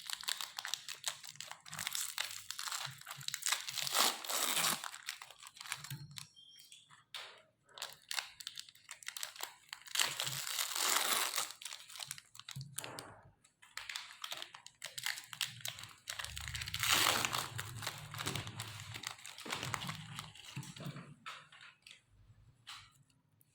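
Wafer biscuits crunching and crackling as a meat grinder crushes them, in irregular surges that swell and fade three times.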